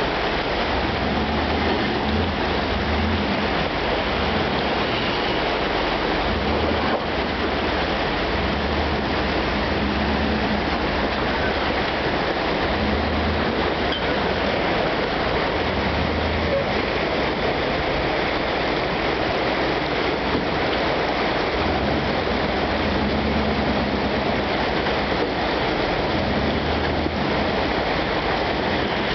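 Rushing creek water, steady throughout, with the low rumble of a square-body Chevy crew-cab pickup's engine crawling at low revs underneath, rising and easing every few seconds as it works over boulders in the creek bed.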